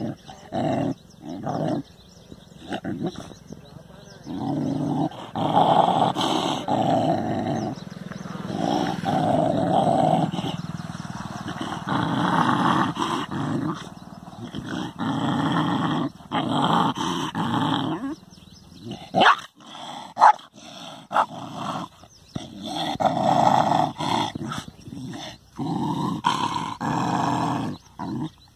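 Dog growling at its own reflection in a mirror: long low warning growls lasting several seconds each, with a burst of short sharp snarls about two-thirds of the way through.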